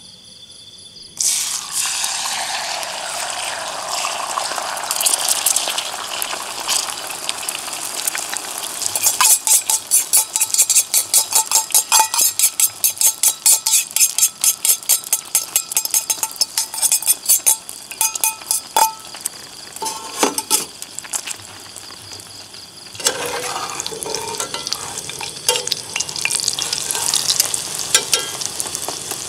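Eggs frying in a hot skillet on a camping stove: sizzling that starts suddenly about a second in, then a utensil beating and scrambling the eggs against the pan with rapid clicking, then a spatula stirring and scraping through them over continued sizzling near the end.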